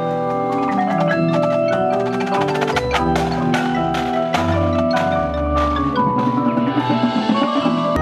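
A marching percussion front ensemble playing a slow piece: marimbas and vibraphones struck with mallets in many ringing, overlapping notes. Low bass notes enter about three seconds in, and a high shimmering wash builds near the end.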